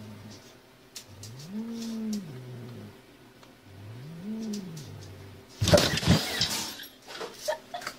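A cat giving long, low, moaning growls, each rising and then falling in pitch, two of them in full, then a sudden loud scuffle and burst of noise as the cats clash and one leaps up, followed by a few small knocks.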